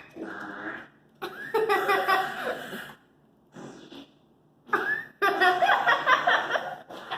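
Fart sound effects played through an Amazon Alexa smart speaker, in three loud bursts with a faint short one between, mixed with children laughing.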